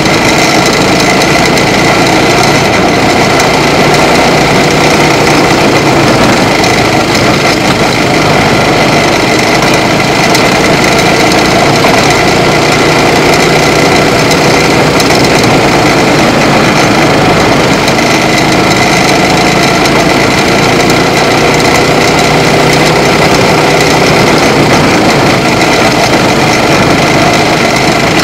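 Small race car engine running hard under load, heard loud from an onboard camera, its pitch dipping and rising gently every few seconds through the corners and straights.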